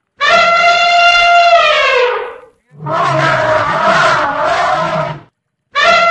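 Elephant trumpeting: three calls in a row with short gaps. The first and last are held at one pitch and then sag downward at the end; the middle one is rougher, with a low wavering undertone.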